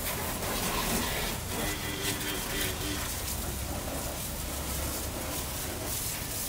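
Pressurised spray jet hissing steadily as it hits the underside of a vehicle during an underbody wash.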